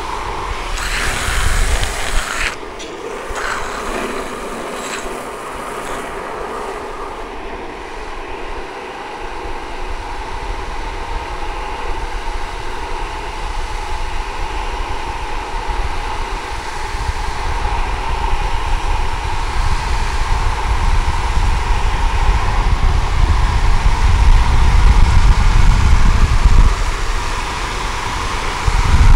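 Wind rushing over the microphone and the rumble of longboard wheels rolling on asphalt at downhill speed. The rumble grows steadily louder over the second half.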